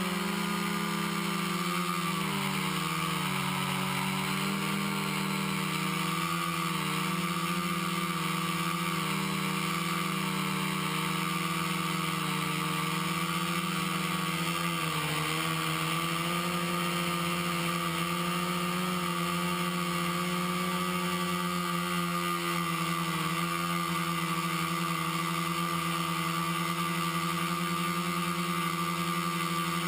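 Quadcopter's four brushless motors (Exceed RC Rocket 2215 920Kv) spinning 10-inch APC props in flight, giving a steady multi-tone drone. The pitch wobbles up and down with throttle changes in the first few seconds and again about halfway through, then holds steady.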